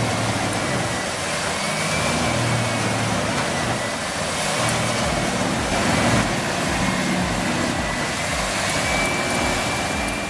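Large Vermeer wood chipper running under load, its engine and cutting drum making a loud, steady grinding noise as it chews through wood.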